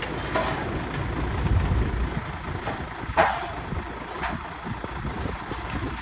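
Heavy-equipment engine running with a low steady rumble, with a few knocks and a sharp clank about three seconds in.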